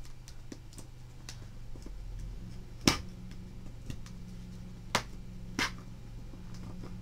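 Bone folder pressing and rubbing a crease into folded magazine paper, with three sharp clicks, the loudest about three seconds in and two more around five seconds in, over a steady low hum.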